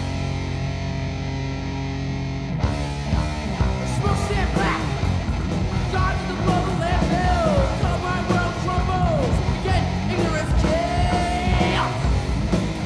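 Thrash metal band playing: a held, distorted electric guitar chord that breaks into fast riffing with drums about two and a half seconds in, followed by yelled vocals over the riff.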